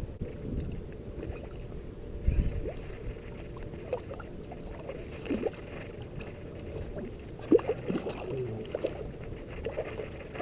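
A hooked carp-koi hybrid thrashing and splashing in shallow water at the bank, in several short bursts of splashing through the latter half.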